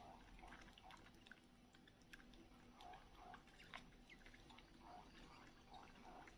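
Faint sucking sounds from a baby monkey drinking from a milk bottle, coming in short irregular runs with small clicks of the teat.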